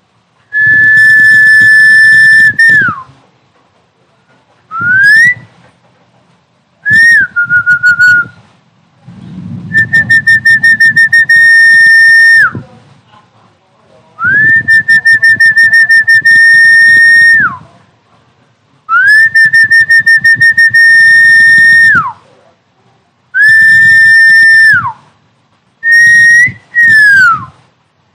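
Recorded snakehead-fish calling sound played loudly through a speaker: a string of about nine high whistled tones with quiet gaps between them. Each tone lasts from half a second to three seconds, some warble or rise, and most end in a falling glide. A low buzzing rumble sits under each tone.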